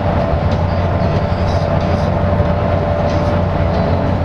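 Cabin noise of a LiAZ-5292.65-03 bus cruising at highway speed: a steady low drone from the drivetrain and an even rush of tyre and road noise, with a steady whine running through it.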